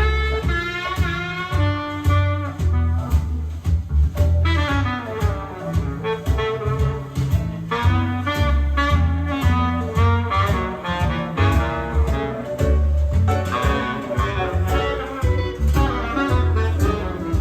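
Jazz music played back from a cassette recording made on an Akai GX-9 cassette deck, running continuously over a steady bass line.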